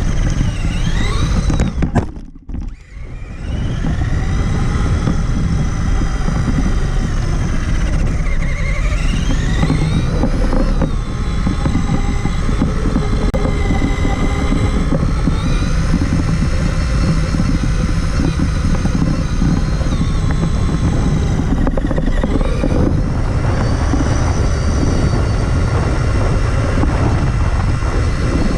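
Traxxas Summit 1/10-scale RC truck's electric motor and geartrain whining, the pitch rising and falling with the throttle, over a constant low rumble from the truck moving over rough ground. The sound drops away briefly about two seconds in, then picks up again.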